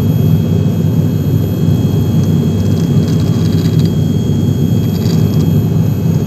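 Turboprop airliner's engine and propeller heard from inside the cabin in flight: a steady, loud low drone with a faint high whine over it.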